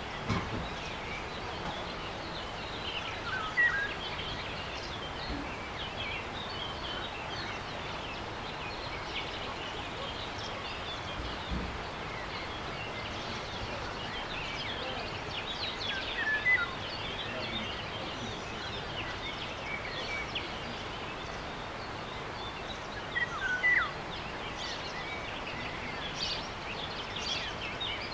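Outdoor nature ambience: a steady, even background hiss with birds chirping now and then, in short high calls that come in small clusters every few seconds.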